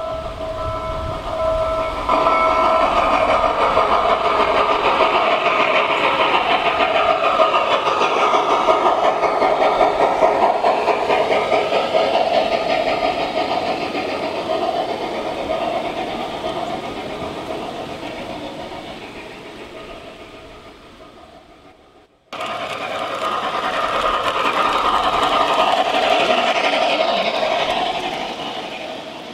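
G scale model passenger train rolling past on garden railway track, its wheels clattering, with squealing tones that slide in pitch; it grows louder, then fades away. After a sudden cut about 22 seconds in, a second pass swells and fades again. A steady whistle-like tone sounds for the first two seconds.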